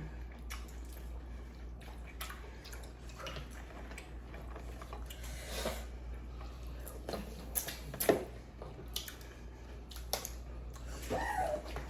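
Eating sounds of a seafood boil: scattered wet smacks and small clicks of chewing and handling shellfish, the sharpest about eight seconds in, over a steady low hum.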